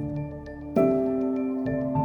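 Background music of sustained ringing notes, with a new chord struck under a second in.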